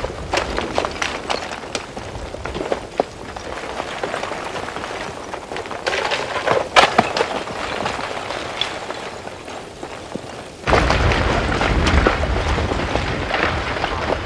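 Blocks of lava crust cracking, clinking and tumbling down the front of an advancing lava flow, heard as scattered knocks with one sharp crack about halfway through. About two-thirds of the way in, the sound switches abruptly to a louder steady rushing noise with a low rumble.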